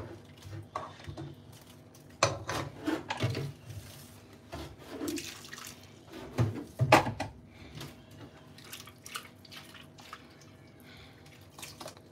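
Metal spoon stirring soup in a cooking pot: irregular scrapes and knocks against the pot with liquid sloshing, the loudest knocks about seven seconds in.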